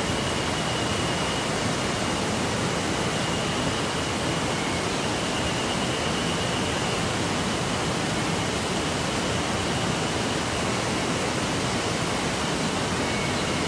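Steady, even rush of flowing water, with a faint thin high tone held through it.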